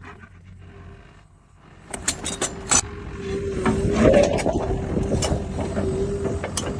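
Excavator working: a run of mechanical clicks and rattles about two seconds in, then a steady whine with dense gear-like rattling through the second half.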